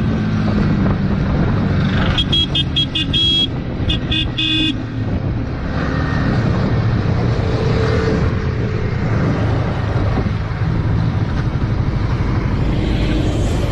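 Sport motorcycle running at road speed, heard from the rider's position with a steady rush of wind noise. Two to four and a half seconds in, a horn gives a quick series of short, high-pitched toots.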